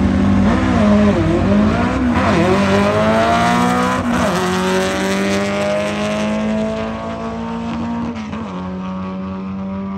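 Drag-race car engines, a Volkswagen Beetle and a Camaro, revving up and down at the start line, then launching about four seconds in. Engine pitch climbs steadily, drops once near the end at a gear change, and the sound fades slowly as the cars pull away down the strip.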